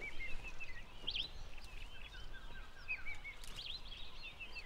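Small wild birds chirping and whistling over a faint, steady outdoor background, with a quick run of repeated short whistled notes about two seconds in.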